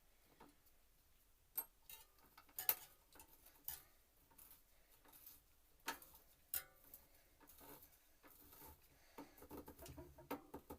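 Scattered light clicks and knocks of small metal bicycle hub parts and tools being handled during reassembly, irregular rather than rhythmic, the sharpest about three seconds in.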